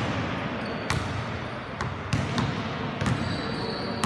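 Basketball bouncing on an indoor court floor: a few separate thumps at uneven intervals.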